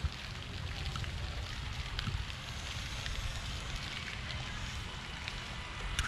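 Outdoor wind noise buffeting the camera's microphone as a choppy low rumble, over a steady hiss, with a couple of brief knocks.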